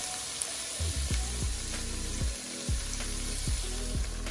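Chopped onions, bell peppers and tomatoes sizzling in olive oil in a skillet over medium-high heat, a steady frying hiss, with soft background music.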